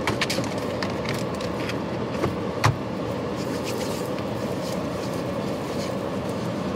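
Steady background noise inside a stopped car's cabin, with a few light clicks and one sharper knock about two and a half seconds in.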